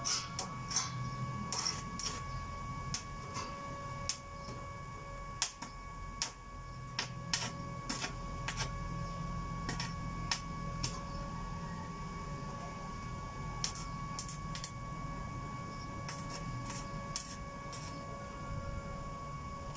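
Stick welding on a steel gate frame: a steady high whine and hum from the small inverter welding machine, with irregular sharp crackles and clicks from the arc.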